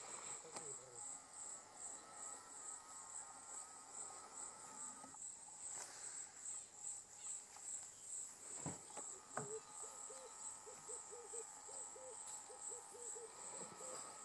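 Faint chorus of insects, likely crickets, calling in a steady, fast-pulsing high trill. From about eight seconds in, a low call repeats about twice a second.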